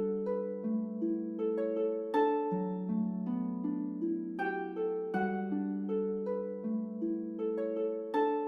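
Background music: a gentle melody of plucked notes, one after another in a phrase that repeats about every five seconds.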